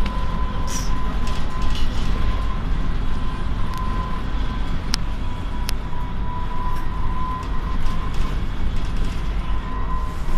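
Inside a moving city bus: steady low rumble of the drivetrain and tyres on the road, with a thin steady whine over it. Two sharp ticks, like cabin rattles, about five seconds in.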